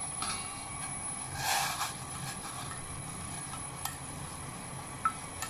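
Superworms tipped from a metal bowl into a pot of boiling water: a brief splash and rattle about a second and a half in, then a few light taps of chopsticks on metal near the end, over a steady low hum.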